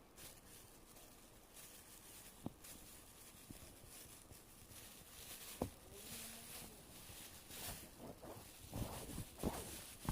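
Faint handling noises as a homemade tissue squishy is worked back into its plastic wrapping: light rustling with a couple of soft clicks, and a few more knocks and scrapes near the end.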